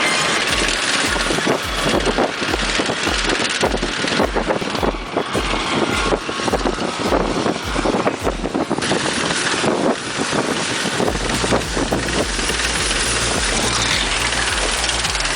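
Crawler bulldozer working: engine running under load with dense rattling and clanking, and wind buffeting the microphone. A regular low thump about twice a second gives way to a steadier low drone about eleven seconds in.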